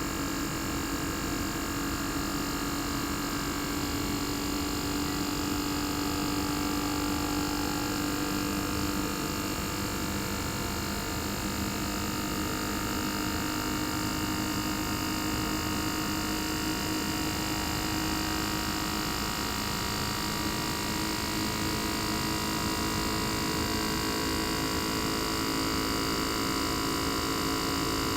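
Panasonic CU-227CF outdoor unit's inverter-driven single-rotary compressor running with a steady electric hum, heard raw through the unit's opened top with its sound insulation partly removed.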